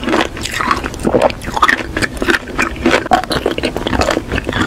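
Close-miked ASMR eating: teeth biting and crunching through small, hard, multicoloured candy pellets coated on a stick, a quick irregular run of crisp crunches and mouth clicks.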